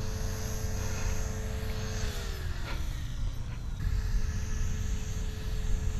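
Wind rumbling on the microphone, with a faint steady electronic-sounding whine that slides down in pitch about two seconds in, fades, and comes back near four seconds.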